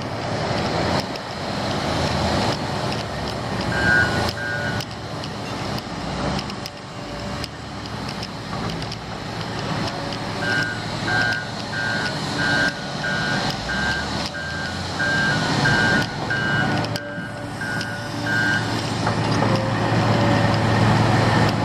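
Heavy diesel construction machinery running, with a reversing alarm beeping about twice a second. A couple of beeps come about four seconds in, then a longer run of beeps through the middle.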